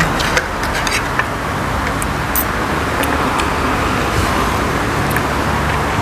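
Steady road traffic noise from passing cars, with a few light clinks of metal spoons and forks on ceramic plates.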